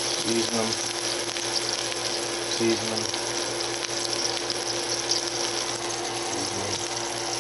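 Hot cooking oil sizzling in a frying pan, a steady dense crackle of bubbling oil. A steady low hum runs underneath.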